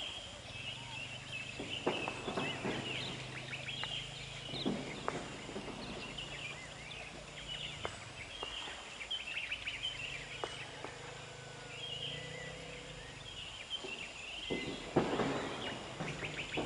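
Small birds chirping over outdoor ambience, with a faint low steady hum under them that breaks off briefly about halfway and fades near the end.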